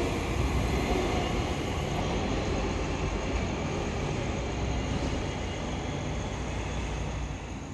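A passing train: a steady rumble and rush of noise that slowly fades as it moves away.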